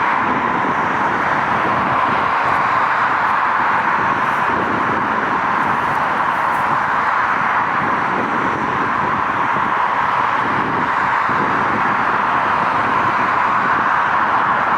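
Boeing 777 jet engines running, a loud steady rushing noise at an even level.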